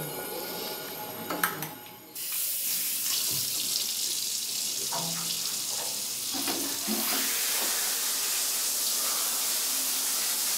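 Bathroom sink tap running, water pouring steadily into the basin; the flow starts suddenly about two seconds in.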